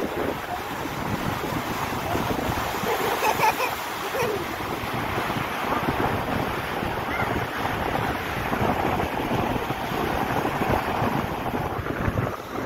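Sea surf washing up a sandy beach in a steady rush, with wind buffeting the microphone.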